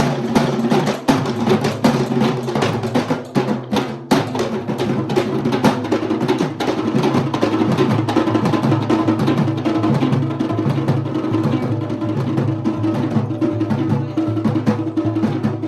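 Sri Lankan traditional drum ensemble playing together in a fast, dense rhythm. The playing drops out for a moment just before four seconds in, then carries on.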